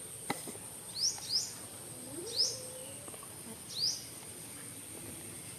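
A small bird calling in short upward-sweeping chirps, four of them a second or so apart, over a steady high-pitched insect drone. A single soft click comes near the start.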